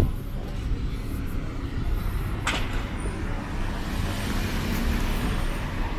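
A car's engine running as it approaches slowly along a city street, over a steady low traffic rumble. A single sharp click comes about two and a half seconds in.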